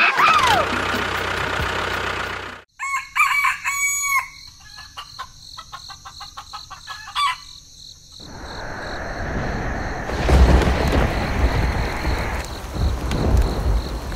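A rooster crows at the start, followed about three seconds in by a few short clucking calls. From about eight seconds in, a steady noisy rumble takes over.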